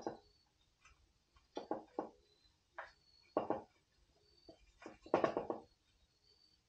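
A string of short knocks and clunks of hard objects being handled, some in quick pairs, loudest about five seconds in.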